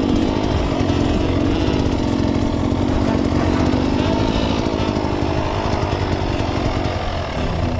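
Off-road motorcycle engine running steadily with a rough, rapid buzz under way.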